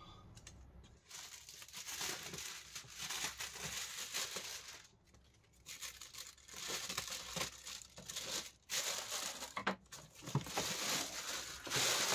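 Plastic mailing bag being torn open and pulled off a cardboard box, in irregular bursts of tearing and crinkling with a brief lull about five seconds in.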